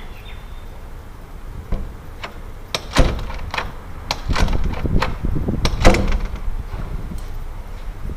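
Wooden door in a metal frame being swung and shut: a run of sharp clicks and knocks from the latch and the door meeting the frame, the loudest about three seconds in and again near six seconds.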